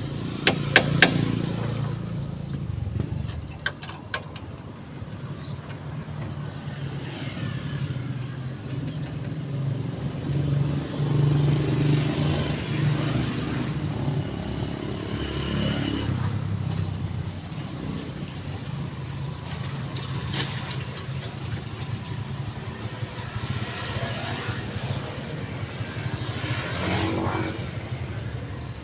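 A motor vehicle engine running steadily, with a few sharp clicks at the start.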